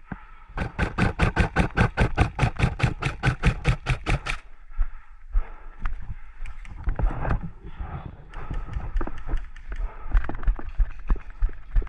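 Airsoft gun firing a rapid, even string of shots, about seven a second, for roughly four seconds, then another, fainter string of shots with scattered knocks and clatter near the end.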